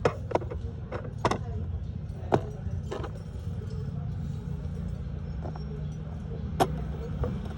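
Washing machine running with a steady low hum, with irregular sharp clicks and knocks about seven times.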